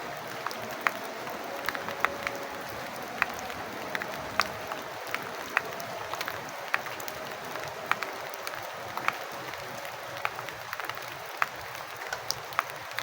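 Steady rain with sharp, irregular drips falling from a hut roof, about one or two a second standing out above the hiss.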